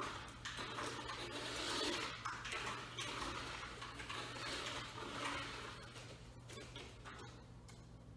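A toy RC car's small electric motor and gears whirring in uneven bursts as it is driven, fading off in the last couple of seconds.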